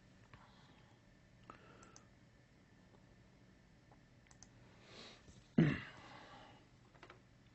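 Quiet room tone with a few faint computer-mouse clicks, and one louder short puff or thump on the microphone about five and a half seconds in.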